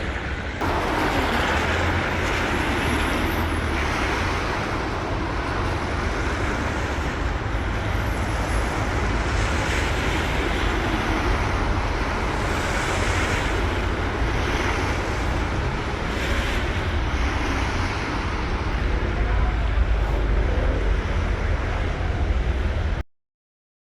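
City street traffic: a steady rush of cars and buses passing, with a deep low rumble underneath. It cuts off abruptly just before the end.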